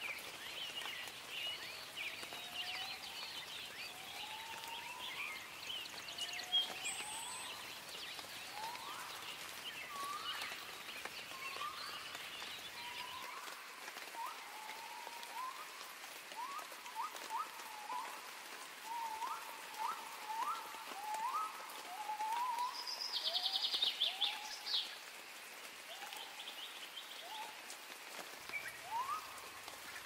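Nature ambience of many animal calls: short rising chirps repeating over a steady background hiss, with a brief rapid trill a little past the middle.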